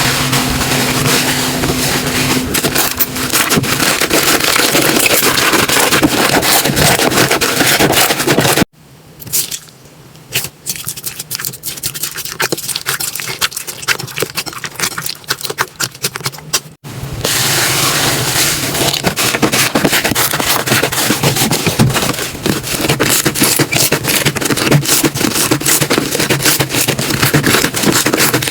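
Slime being handled, pressed and squished, making dense crackling and clicking. There is a much quieter stretch of sparse clicks in the middle, with abrupt changes where the clips switch.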